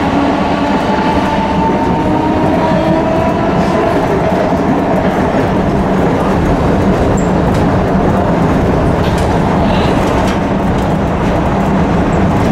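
Tram running along its rails, heard from the driver's cab: a steady rumble of wheels on track with a whine that glides in pitch over the first few seconds and settles into a steady hum, plus a few light clicks later on.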